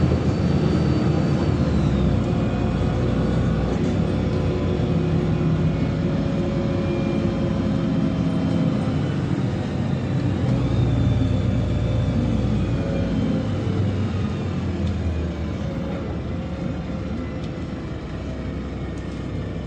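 Inside a LiAZ-5292.67 compressed-natural-gas city bus under way: steady engine and road noise, with thin whines that shift in pitch. The noise eases off a little near the end.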